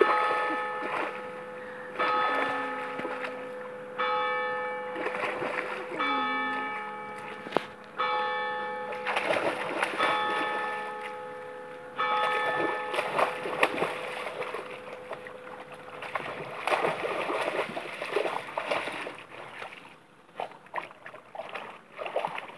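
A bell tolls seven times, one stroke about every two seconds, each stroke ringing on and fading. Mixed with it, and alone for the rest, a dog splashes and wades through shallow river water.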